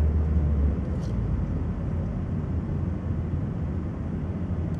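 Steady low rumble of a car's engine and road noise heard from inside the cabin while driving slowly, a little louder in the first second.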